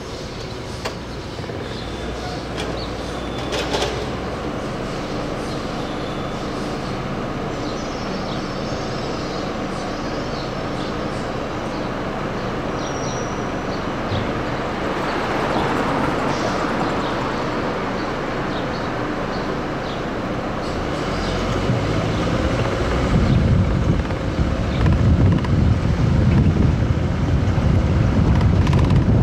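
Steady rumble of vehicles running. In the last several seconds, wind buffets the microphone.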